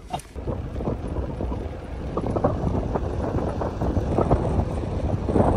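A car driving along, with wind buffeting the microphone in an uneven, gusting low rumble.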